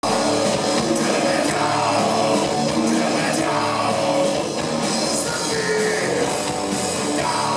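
Live rock band playing: electric guitars, bass guitar and drum kit together at a steady loud level.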